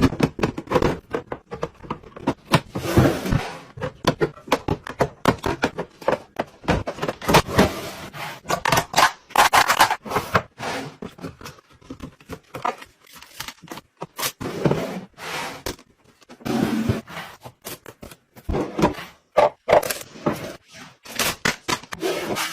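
Items being handled and arranged while restocking a mini fridge: a dense run of clicks, taps and knocks as things are set down, with scraping and rustling from time to time.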